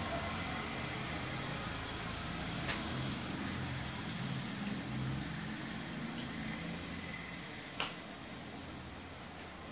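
Steady low background hum with two short sharp clicks, about three and eight seconds in.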